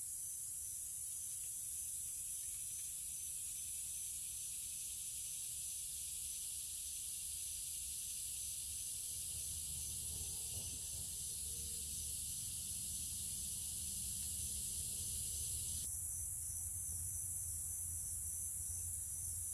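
Steady hiss over a faint low rumble, with no distinct event.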